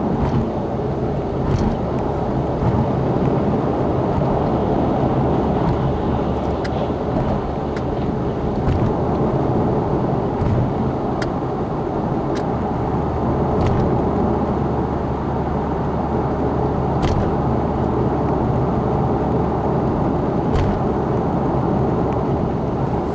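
Steady road and engine noise heard inside a car's cabin cruising at expressway speed, with a few brief knocks scattered through.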